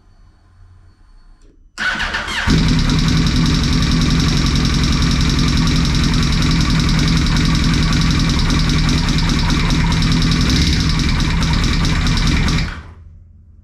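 Yamaha R1 inline-four engine cranked over by its electric starter for a moment about two seconds in, catching and idling steadily, then switched off near the end. It runs with the very bad ticking noise that the owner traces to a dropped valve.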